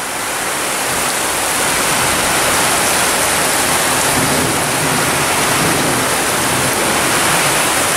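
Very heavy rain pouring down, a dense, steady hiss that swells slightly in the first second.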